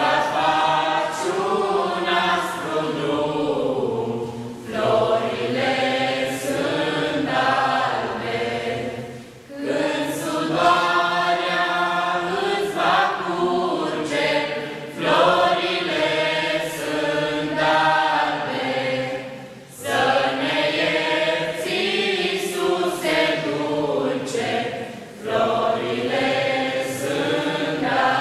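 Small mixed group of young voices singing a Christmas carol together, in phrases of about five seconds with short breaths between them.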